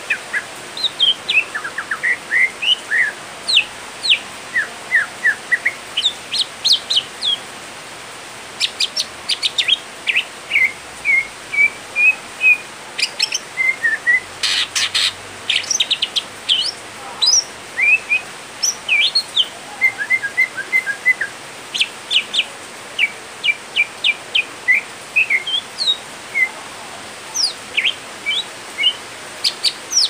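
Male green leafbird (cucak hijau) singing: a long, varied run of quick chirps, sharp rising and falling whistles and short trills, in phrases broken by brief pauses.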